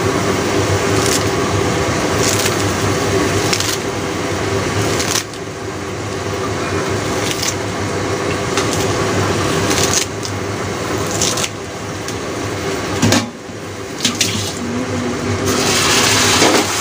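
Covered pan of beef and shiitake mushrooms sizzling and simmering on a gas stove: a steady sizzle over a low hum, with occasional small pops. About 13 seconds in there is a sharp knock, and near the end the sizzle turns brighter and hissier once the pan is uncovered.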